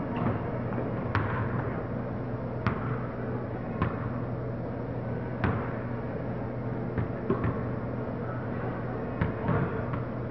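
A basketball bouncing on a hardwood gym floor: separate thuds a second or two apart, with a quick cluster near the end, echoing in the gymnasium over a steady low hum.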